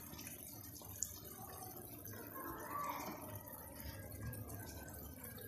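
Faint bubbling of a watery potato, onion and tomato mixture simmering in a frying pan as an egg is slid in, with a small click about a second in.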